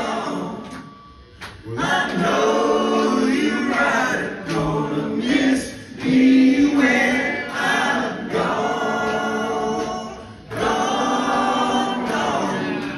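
Several male voices singing together in harmony in a live rock band, in sung lines with short breaks between them.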